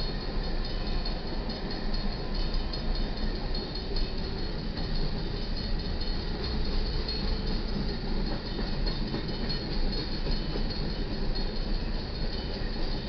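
Empty coal hopper cars of a freight train rolling past over the crossing, their steel wheels on the rails making a steady, continuous noise.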